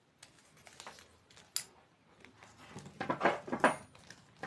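Thin aluminium plates and their bolt hardware clinking and rattling as they are handled. There are scattered light clicks, a sharp click, then a cluster of louder metallic knocks about three seconds in.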